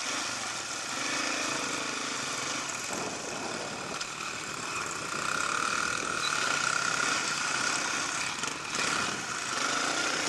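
Small children's dirt-bike engines running steadily, the pitch of the revs shifting now and then.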